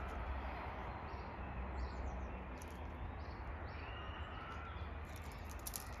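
Faint small-bird chirps over a steady low outdoor background hum, with a few short clicks near the end.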